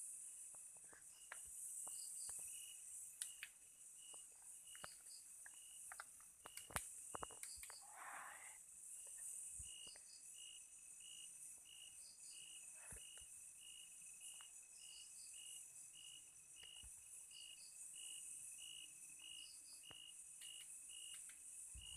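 Faint night insects: a steady high hiss with a cricket chirping evenly about twice a second, and another insect giving paired chirps every second or two. Scattered faint clicks and rustles are heard now and then.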